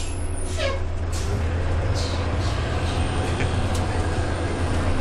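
Inside a city bus: the bus running with a steady low rumble, broken by a few short sharp clicks and rattles.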